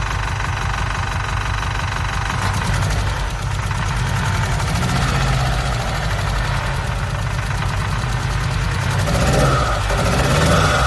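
Freshly rebuilt forged Vauxhall/Opel Z20LET 2.0 turbo four-cylinder engine running unevenly at its first start-up, with a misfire. It gets briefly louder near the end.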